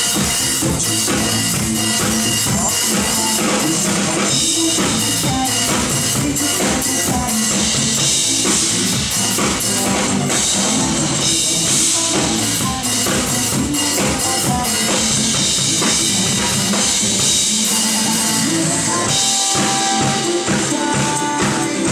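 Acrylic drum kit played live with a driving pop beat over a loud recorded backing track; hits on the kick, snare and cymbals run continuously on top of the sustained notes of the track.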